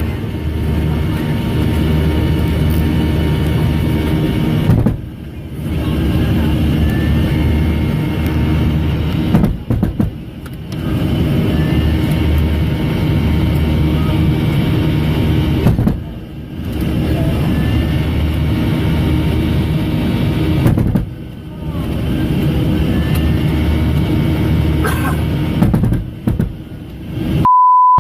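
Steady low drone of an airliner's engines, broken by several brief drops in level, with a short steady beep near the end.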